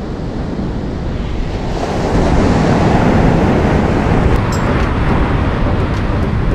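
Ocean surf breaking and washing up a sandy beach, with wind buffeting the microphone. The wash swells louder about two seconds in.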